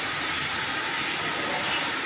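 Sawmill machinery running steadily: an even rushing noise with no cutting strokes or knocks.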